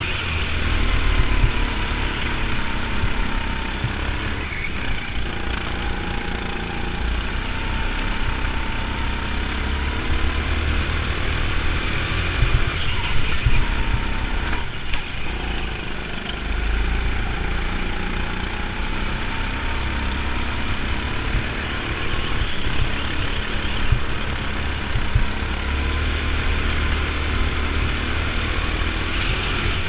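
Go-kart motor running at racing speed. Its pitch rises and falls as the kart accelerates out of corners and slows into them, over a steady low rumble.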